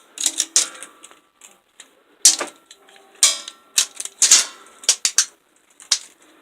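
Irregular sharp metallic clacks and clanks, a dozen or so spaced unevenly, some followed by a brief ring, as steel pieces are handled and knocked together.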